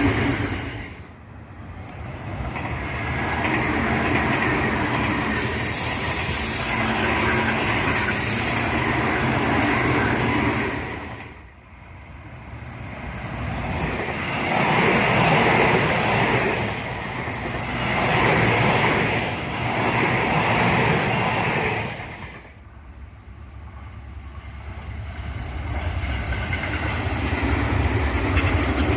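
Tobu Tojo Line electric trains passing, loud. The sound falls away sharply about a second in, again at about eleven seconds and at about twenty-two seconds, then builds back up each time.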